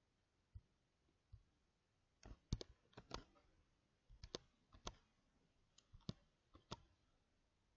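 Sharp clicks of a computer mouse and keyboard, in three quick clusters about a second apart, as spreadsheet cells are copied and pasted.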